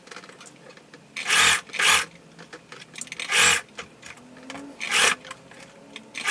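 Dress fabric rubbing in four short rasping bursts as the bunched garment is pushed and pulled through a sewing machine.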